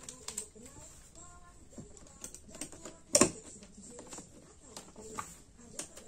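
Small metal clicks and taps from a bit driver working on the pivot screw of a balisong knife, with one sharp, louder knock about three seconds in.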